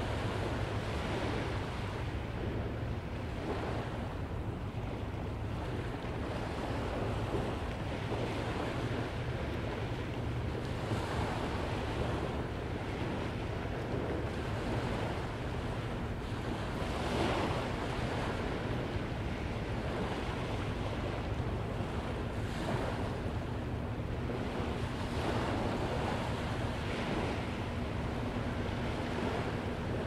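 Ocean surf washing onto a sandy beach as the tide comes in: a steady rush with a wave swelling and breaking every few seconds. Low wind rumble on the microphone runs underneath.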